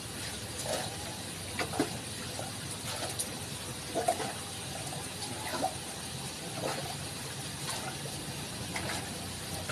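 Water sloshing and splashing as a metal pail is scooped through the water at the bottom of a well, with short splashes and knocks every second or so.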